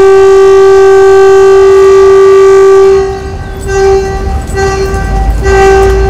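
NY Waterway ferry's horn: one long, steady blast that ends about three seconds in, then three short blasts. This is the sequence of whistle signals a ferry sounds when backing out of its slip and departing: a prolonged blast, then three short blasts for going astern.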